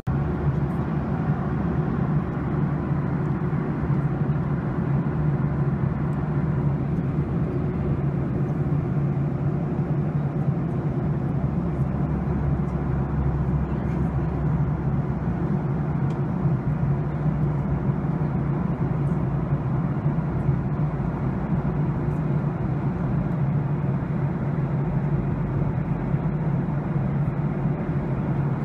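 Steady low drone of a jet airliner's cabin, engines and airflow heard from a window seat.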